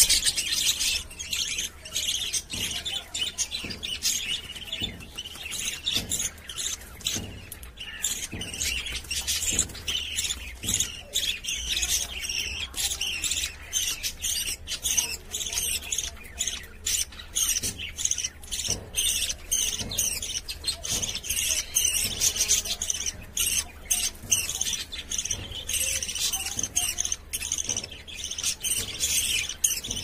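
A group of budgerigars chattering without a break: many overlapping short, high chirps and squawks, some of them from fledglings being fed by an adult.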